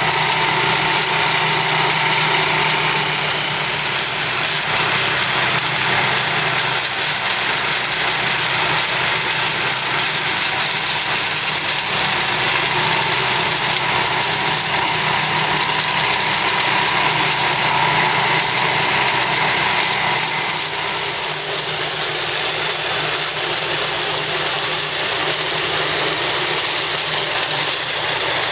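Orec AHRC662 walk-behind flail mower running steadily under load as it mows through tall grass and weeds, its engine sound mixed with a dense, even rushing noise from the cutting.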